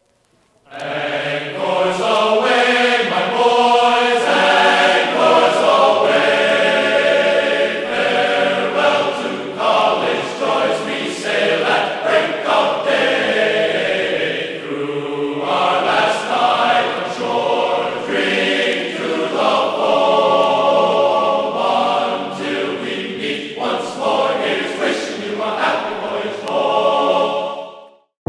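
Background music with a choir singing long held notes. It comes in about a second in and stops abruptly near the end.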